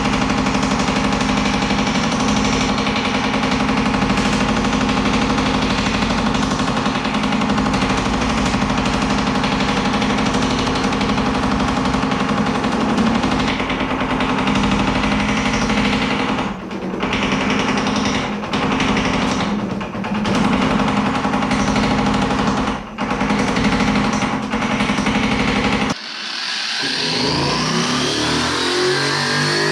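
Power hammer running steadily and striking sheet steel in very rapid, light blows with a 3-inch die, planishing dents out of a door skin. It stops briefly several times in the second half. Near the end it cuts off and music comes in.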